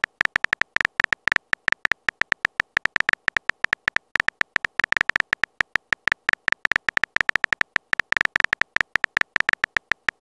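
Keyboard typing sound effect of a texting app: a fast, uneven run of short, high clicks, one per letter typed, several a second.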